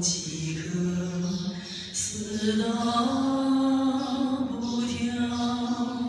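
A slow Tibetan Buddhist chant sung in long held notes, stepping up to a higher sustained note about two seconds in.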